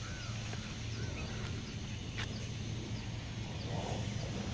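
Faint, short bird chirps now and then over a steady low hum.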